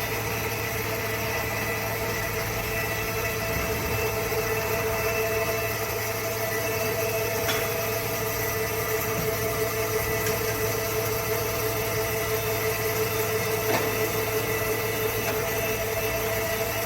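CNC machine tool running steadily while machining an electric motor housing: an even hum with several steady whining tones, and a couple of faint ticks.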